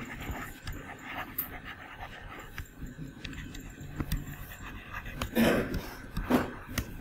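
A person's breathing close to the microphone, with two louder breaths near the end, over faint taps and scratches of a stylus writing on a screen.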